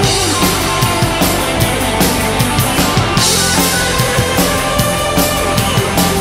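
Live rock band playing an instrumental passage: drum kit keeping a steady, fast beat under electric guitars and electric bass. A cymbal crash comes about halfway through.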